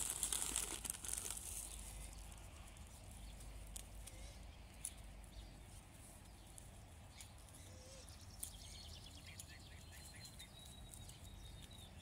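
Brief rustling at the start, then faint outdoor background with scattered small clicks, and a quick run of faint ticks about two-thirds of the way through.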